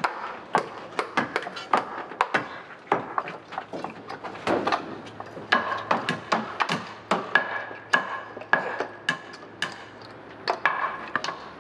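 Hammers striking nails and wooden formwork boards: a run of irregular, sharp blows, several a second.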